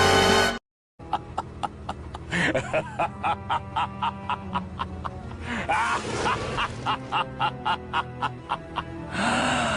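A comic sound effect: a steady clicking beat, about two or three clicks a second, with short pitched calls over it, starting after the previous music cuts off about half a second in.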